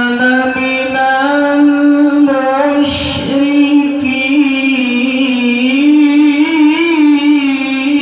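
Male qori reciting the Quran through a microphone in a high, long-held voice, with the pitch wavering and ornamented within each held note. There is a brief breathy break about three seconds in.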